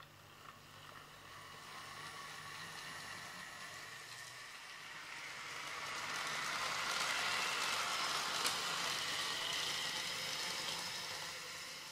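Model train running on sectional track: the small electric motor's high whine and the wheels on the rails grow louder, are loudest about two-thirds of the way through, then ease off, with one sharp tick near the loudest point.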